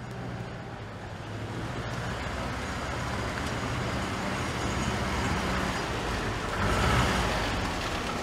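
Old Mercedes-Benz saloon driving slowly over cobblestones, its engine a low steady hum with tyre noise. It grows louder as it approaches and is loudest about seven seconds in as it pulls up.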